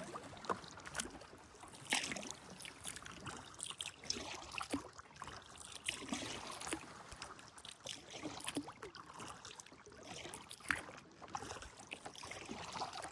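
Kayak paddling: paddle blades swishing and dripping in the water, with irregular light clicks and knocks.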